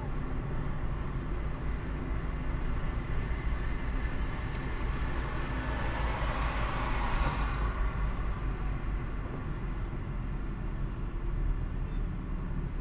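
Steady low rumble of a car driving at about 40 km/h, heard from a dashcam inside the cabin. About six seconds in, another car passing close alongside adds a rise and fall of tyre and road hiss.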